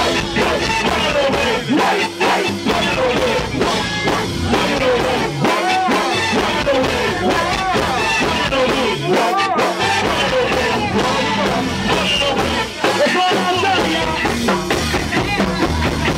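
Live go-go band playing a dense, percussion-driven beat, with a voice singing or chanting over the music.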